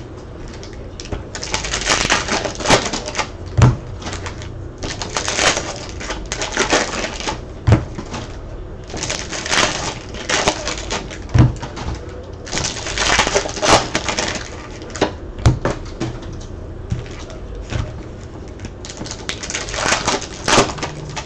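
Repeated bursts of crinkling and rustling from handled packaging, each a second or two long and coming at irregular intervals, with sharp clicks and a few soft knocks on a table in between.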